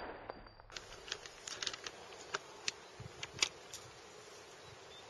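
A bang fades out at the start. Then there is faint outdoor ambience: a thin, steady insect buzz with many small, sharp clicks scattered through the first few seconds.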